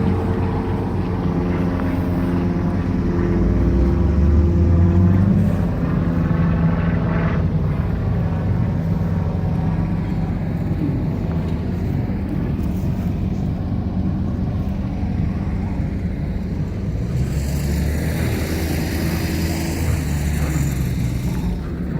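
Heavy construction machinery engines running steadily, swelling louder around four seconds in. A rushing, hissing noise joins near the end.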